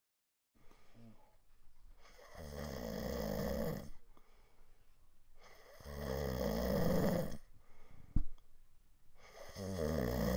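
A sleeping person snoring: three long snores, about three and a half seconds apart, with a short sharp click between the second and third.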